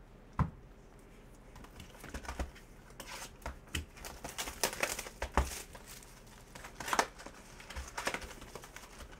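Panini Prizm Basketball retail box of trading cards, a cardboard box, being handled and opened by hand: one sharp knock about half a second in, then a run of crinkling, tearing and clicking as the box is pulled open.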